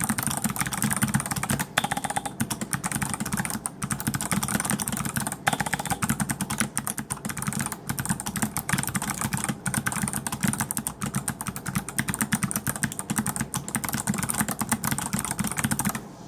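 Mechanical keyboard with clicky Kailh BOX Navy switches being typed on quickly, a dense, unbroken run of sharp key clicks. The spacebar is damped with a wad of paper towel stuffed into it.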